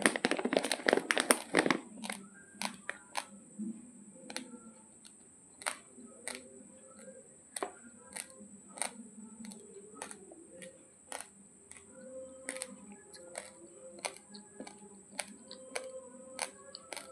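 A shiny plastic rice bag crinkles loudly as a hand grips and moves it for the first couple of seconds. After that come sparse, irregular faint clicks over a steady high-pitched whine.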